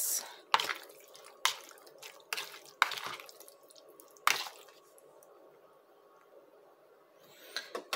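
Raw sliced beef in a wet soy-sauce, oil and lemon marinade being stirred with a metal fork in a plastic bowl. About six sharp, wet squelches and clicks of the fork against the bowl come in the first half, with softer handling sounds near the end.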